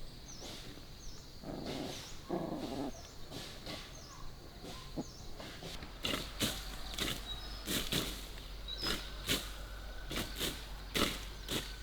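Hand tools chopping and striking through brush and soil while clearing overgrown ground, in sharp blows about every half second in the second half. About two seconds in there is a brief animal call.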